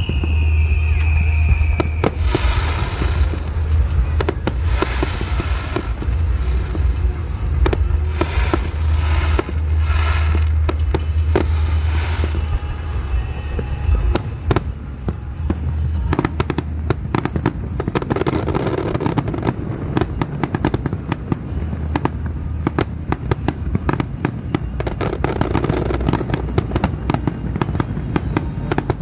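Fireworks display: aerial shells bursting, with crackling that grows dense and rapid in the second half. Music plays underneath in the first half.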